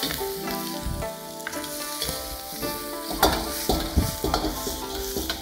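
Chicken and bell peppers sizzling in a hot wok over a gas flame while a metal ladle stirs and scrapes them; from a little past halfway the ladle clanks against the wok several times as it is stirred and tossed.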